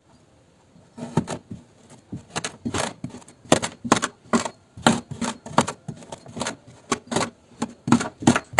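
Kinetic sand being cut, a run of short, sharp slicing strokes about two to three a second, starting about a second in.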